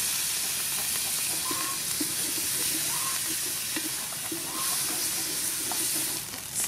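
Fish sauce sizzling as it hits hot oil and fried pounded curry paste in a metal pot, stirred with a wooden spatula. The sizzle is steady and eases off near the end.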